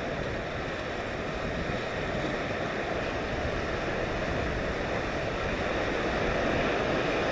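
Sea surf surging and washing against a rocky shore, a steady rush of water that grows a little louder near the end.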